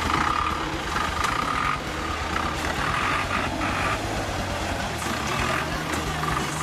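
GAZ-69-type off-roader's engine running under load as the vehicle crawls out of a muddy rut and drives past, with a steady high whine over it. About two and a half seconds in there is a burst of churning noise.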